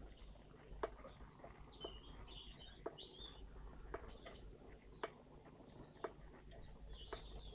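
Faint chirps from small songbirds, with a sharp click about once a second throughout.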